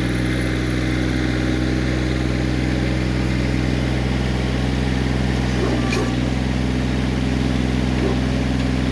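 Kioti CK20S compact tractor's three-cylinder diesel engine running steadily at constant speed, with a short click about six seconds in.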